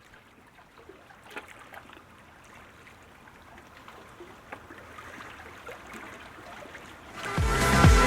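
Faint trickling water with scattered small knocks, then electronic dance music starts loudly about seven seconds in.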